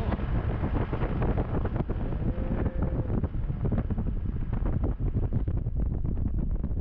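Wind buffeting the microphone: a steady heavy rumble with crackling.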